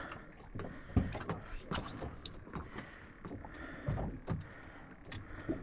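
Scattered clicks and light knocks of handling aboard an offshore fishing boat, with a couple of low thumps, over a faint steady background of boat noise.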